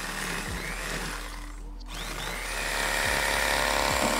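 Electric fillet knife running with a steady motor buzz as its blades saw through a catfish. It drops out briefly about one and a half seconds in, then runs on louder.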